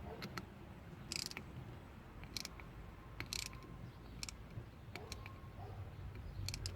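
Faint, scattered metallic clicks and a few short clattering bursts from hand tools and the newly fitted AC compressor clutch being handled.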